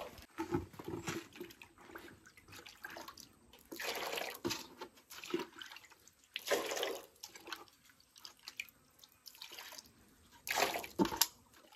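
Liquid poured and splashing into shallow plastic trays of rubber latex, in short irregular spells.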